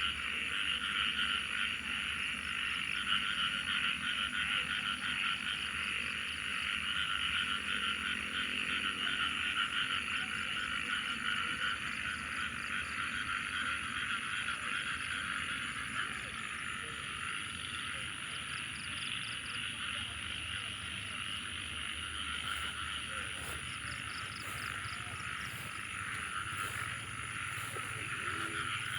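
Dense chorus of frogs croaking without a break, with a steady high-pitched whine above it.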